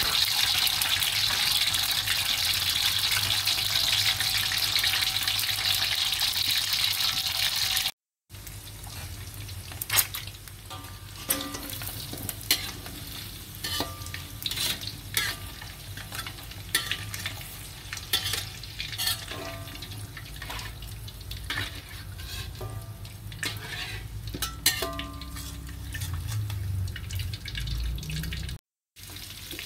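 Boiled quail eggs frying in hot oil in a wok: a loud, steady sizzle for the first several seconds. After a cut the sizzle is quieter, broken by frequent clicks and scrapes of the metal spatula and slotted ladle against the wok as the eggs are stirred and scooped out.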